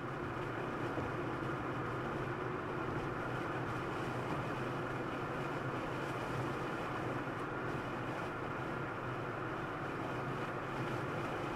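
Steady drone of a moving car's engine and road noise, with a constant low hum and no change in pitch.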